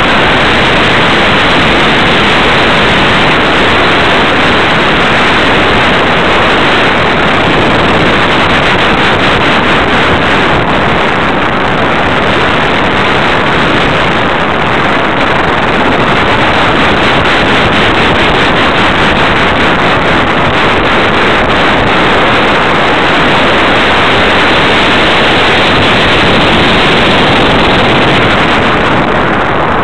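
Loud, steady rush of air over the onboard camera's microphone on a radio-controlled Super Cub model plane in flight. No motor or propeller tone stands out from the rush.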